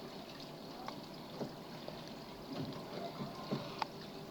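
Faint, scattered small clicks and scraping of a lock pick working the pins of a pin-tumbler lock, held under a tension wrench.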